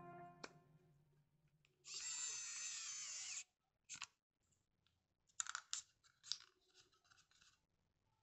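Xiaomi Wowstick electric precision screwdriver's small motor whirring for about a second and a half as it drives a screw into a plastic mouse shell. Several light plastic clicks and taps follow as the bit is withdrawn and the mouse is handled.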